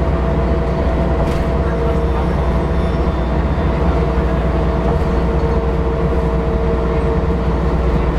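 Mercedes-Benz O405NH bus's engine and drivetrain running steadily while driving, heard from inside the passenger cabin: a constant low rumble with a steady whine over it.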